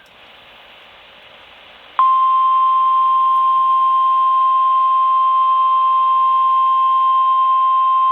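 NOAA Weather Radio receiver sounding its 1050 Hz warning alarm tone, the alert that comes before a broadcast warning, here a special marine warning. After about two seconds of faint radio hiss, one loud, steady, unbroken tone starts suddenly.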